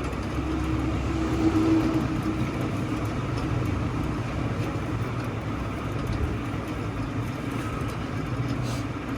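A motor vehicle engine running steadily, a continuous low drone.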